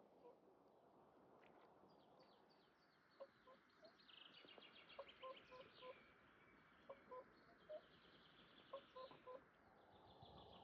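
Faint outdoor birdsong: rapid high trills a few seconds in, with short low clucking notes in groups of three or four repeating several times, over a steady soft hiss.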